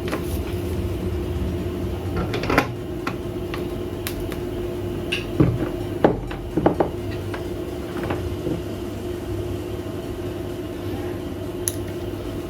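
Scattered light clicks and taps of test-lamp probes and wires being handled against the sewing-machine motor pedal's plug pins during a continuity check, over a steady background hum.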